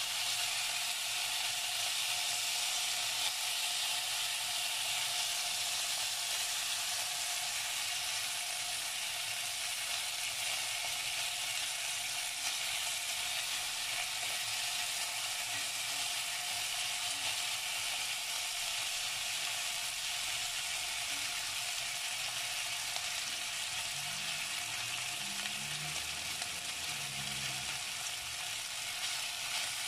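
Chicken wings frying in hot oil in an enamelled cast-iron pot, a steady sizzle as they brown toward golden brown.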